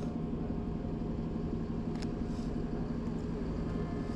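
Steady city traffic rumble, with a vehicle engine running at a constant pitch and a brief click about two seconds in.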